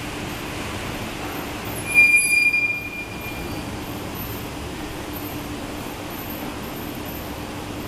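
Tepper diagonal traction glass elevator cab travelling with a steady low hum. About two seconds in, a brief loud high-pitched squeal rings out for about a second and fades.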